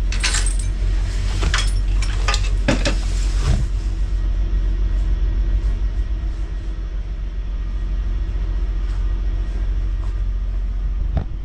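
Semi truck's diesel engine idling with a steady low rumble. In the first few seconds, sharp metallic clinks of tire chains being hung on the truck's chain rack.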